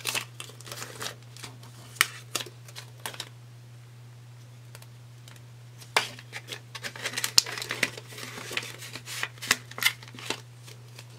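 Paper banknotes and a paper cash envelope being handled: crisp rustling and crinkling with scattered sharp clicks and taps, a quieter lull of about two seconds, then a denser flurry of rustling about six seconds in as the bills are folded and tucked into the envelope. A steady low hum runs underneath.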